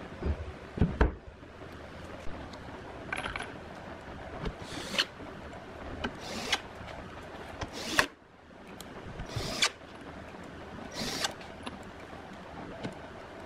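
A wooden speaker-cabinet top panel is set down with a couple of low thumps about a second in. About six short rattles and clicks of loose screws being handled follow, roughly every second and a half.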